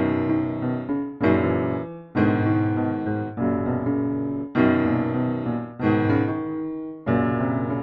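Keyboard music in the style of an electric piano: a slow run of full chords, each struck and left to ring for about a second before the next.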